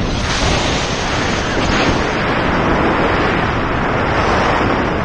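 Loud, steady rush of airflow buffeting the pilot-mounted camera's microphone as the paraglider whirls through a SAT manoeuvre.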